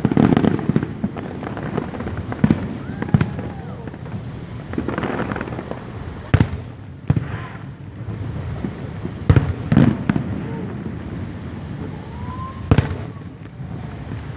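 Fireworks bursting overhead: a string of sharp bangs and booms at uneven intervals, a dozen or so across the stretch.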